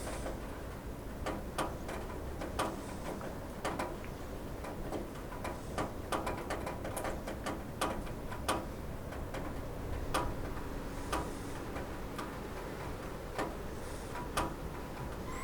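Rain dripping on a roof: irregular sharp ticks of single drops, sometimes several a second, over a steady low hiss.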